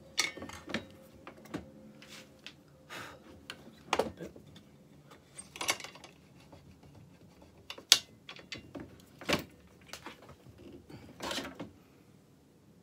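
Irregular knocks and clunks, about a dozen over ten seconds with the sharpest about eight seconds in, as an MDF workpiece is shifted and set down on the table of a bench pillar drill and the drill's feed handle is worked. A faint steady hum fades out in the first few seconds.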